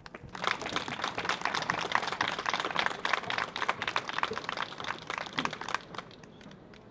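Audience applauding: dense clapping that starts right away, holds strong for about five seconds, then dies away.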